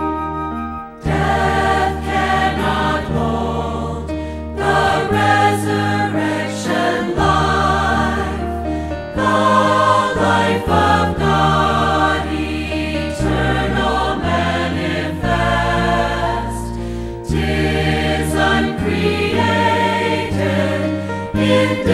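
Background music: a song with choral singing over a bass line, starting about a second in as the previous piece ends.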